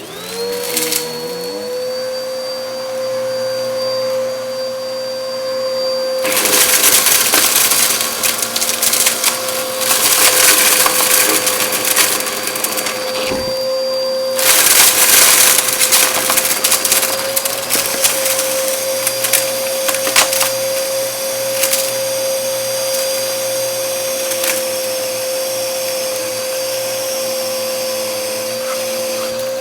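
Bissell vacuum cleaner switched on, its motor spinning up with a rising whine and settling into a steady run. From about six seconds in there are several louder, rushing stretches of several seconds each as it works over a shag rug picking up debris.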